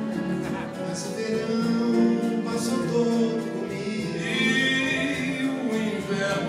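A live band playing a song with a lead singer, heard from the audience of a theatre.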